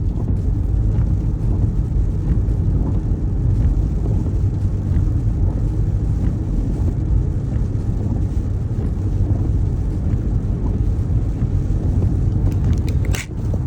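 Car driving, heard from inside the cabin: a steady low engine and road rumble. There is a brief dip with a sharp click near the end.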